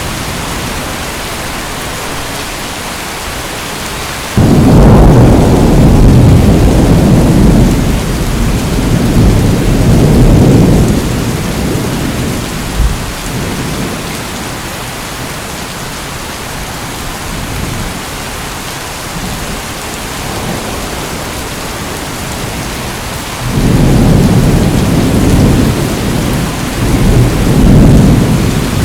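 Steady heavy rain with two long rolls of thunder: the first starts suddenly about four seconds in and rumbles on for several seconds, the second starts near the end.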